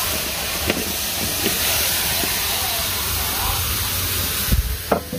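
Steady hiss of winter melon and sugar cooking in a pan over a high flame, with a few light knocks, about a second in and near the end.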